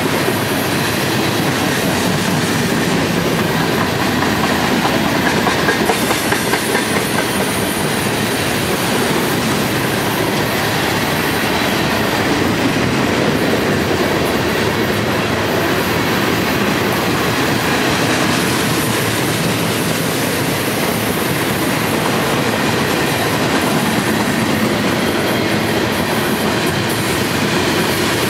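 Covered hopper and tank cars of a mixed freight train rolling past close by: a steady, loud rumble of steel wheels on the rails.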